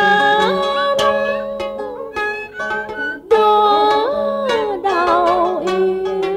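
Cải lương hồ quảng opera music: plucked string instruments pick out a quick melody over low held notes, while a lead line slides between pitches and wavers about five seconds in.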